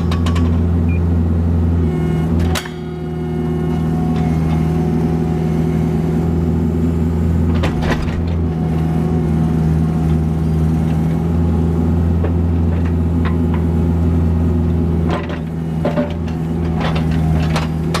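Kubota KX161-3 excavator's diesel engine running steadily, with a brief drop in engine note about two and a half seconds in. Sharp knocks and clunks of the machine working sound out over it, a few about two and a half seconds in, around eight seconds, and several near the end.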